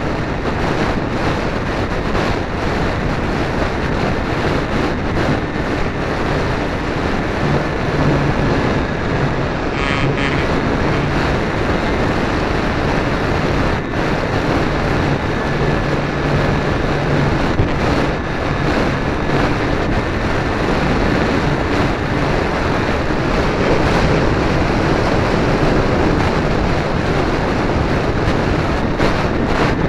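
Wind rushing over the onboard camera's microphone on a small electric RC foam plane in flight, with a faint steady whine from its electric motor underneath.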